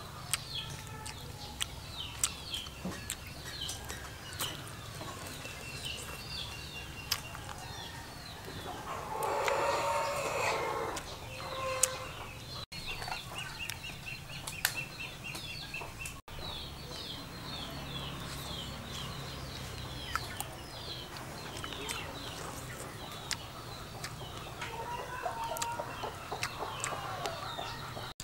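Farmyard birds: small birds chirping over and over, with chickens clucking and a louder flurry of clucking and flapping about ten seconds in. Occasional light clicks are heard throughout.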